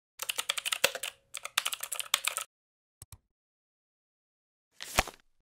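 Computer keyboard typing sound effect: two quick runs of keystrokes, then two single clicks about three seconds in. A short burst of noise follows near the end.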